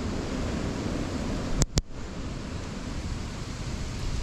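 Storm wind blowing across the microphone: a steady rushing noise heavy in the low end. Two sharp clicks come about a second and a half in.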